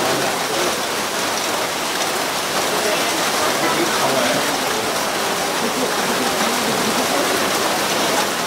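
Steady hiss of rain falling in the forest, with a faint murmur of voices underneath.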